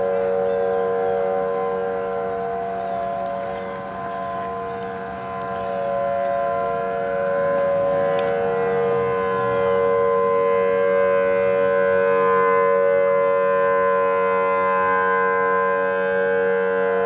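Outdoor warning sirens, among them a Federal Signal Thunderbolt 1000T, sounding a steady multi-tone wail for a monthly test. It fades a little about four seconds in, then swells louder again from about ten seconds in, as a rotating siren turns.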